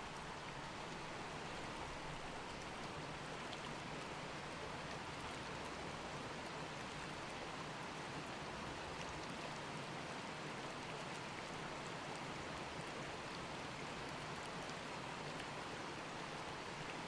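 Faint, steady rush of water flowing along a concrete-lined irrigation canal.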